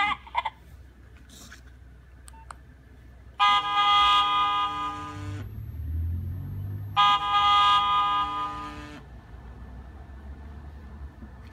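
Nokia 1600 ringtone imitating a car horn: two long honks of about two seconds each, with a low rumble between and after them.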